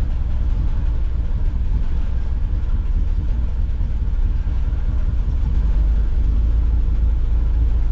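A 1979 GMC Vandura van's engine idling steadily, a continuous low rumble.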